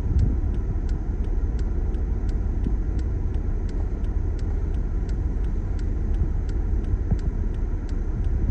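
Motor vehicle running with a steady low rumble, with a light, evenly repeating ticking over it, about two or three ticks a second.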